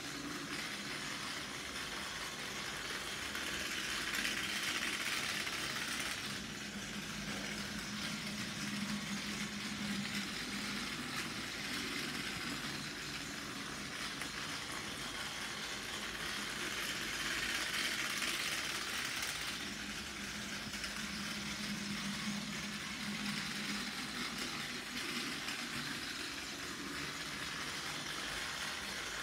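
Battery-powered Plarail C61 20 toy steam locomotive's small motor and gearbox whirring as it runs laps on plastic track, with the wheels rattling over the track joints. The whir swells twice, about 13 seconds apart.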